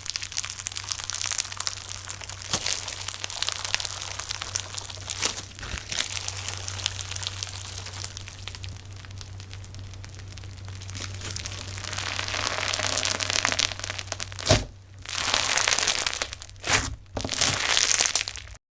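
Slime being squeezed and worked by hand close to the microphone, with dense crackling and popping and a few louder pops near the end, over a low steady hum. The sound cuts off suddenly at the very end.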